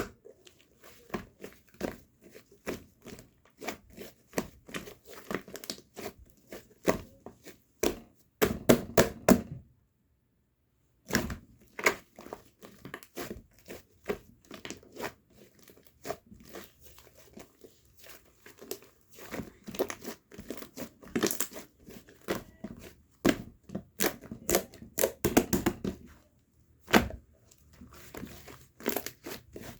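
Fluffy slime squished and pressed by hand, giving a fast stream of sticky crackling pops and clicks, with a brief pause about ten seconds in.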